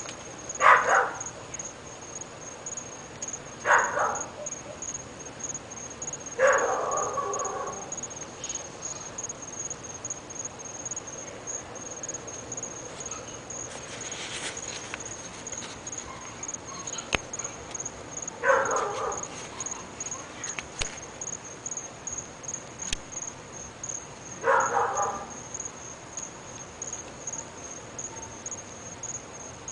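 Dog barking: five single short barks at irregular intervals, with a long gap of about ten seconds in the middle. A steady high-pitched pulsing tone runs underneath.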